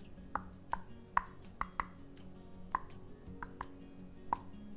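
Light, irregular clicks and taps of a water-soluble wax crayon on paper while colouring, about nine in all, over faint background music.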